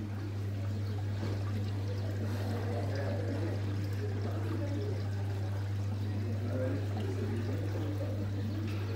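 Steady low electrical hum under a continuous trickling, running-water-like noise and an indistinct murmur.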